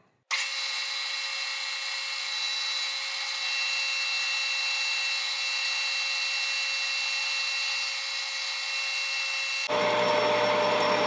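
Metal lathe running at about 1000 RPM while a carbide cutter faces off the end of aluminum bar stock: a steady machine whine with a hiss of cutting. It starts abruptly, and near the end the sound changes, a low hum coming in.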